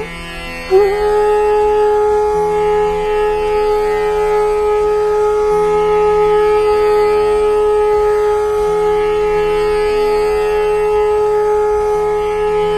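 Background music in an Indian classical style: one long held note, steady for nearly the whole stretch, over lower accompanying notes that shift every second or two.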